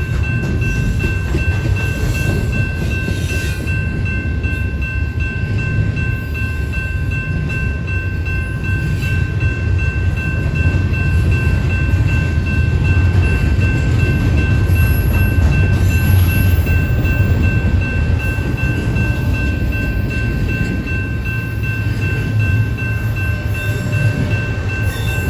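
Double-stack intermodal container train rolling past, its well cars making a steady, heavy low rumble on the rails with a faint, steady high whine over it.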